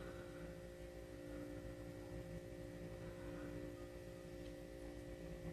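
Faint room tone: a steady hum made of a few constant tones.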